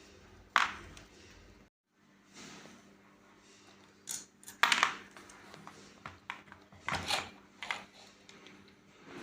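Sharp metallic clinks and knocks of small metal parts and tools being handled during angle grinder disassembly, about half a dozen in all: one loud clink under a second in, a louder pair a little past the middle, and a quick cluster later on.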